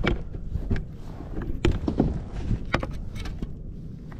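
Water slapping against a Hobie kayak's plastic hull on open-ocean chop, with a low wind rumble on the microphone and a few sharp knocks.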